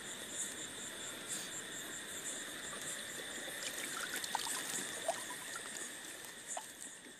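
Water trickling and dripping from a hand net as it is lifted out of the river, with scattered small splashes about halfway through. Behind it, crickets sing steadily, one with an even pulse of about three chirps a second.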